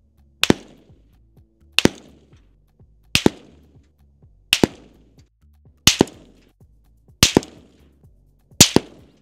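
AR-15 rifle firing 5.56 rounds from 100 yards. Seven sharp supersonic bullet cracks come about every second and a half, each followed closely by a second report, as the bullets pass at ranges stepping from 50 yards down to 1 yard.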